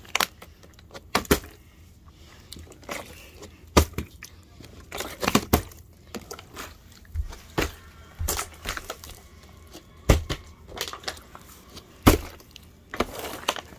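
Irregular sharp knocks and clatters, about a dozen, from a plastic water bottle being tossed in bottle flips and hitting the bed and nearby surfaces.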